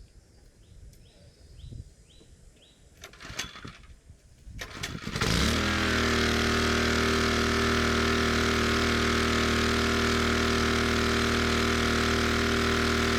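Small gasoline engine of a pressure washer starting about five seconds in after a few rattles, then running steadily at a constant speed.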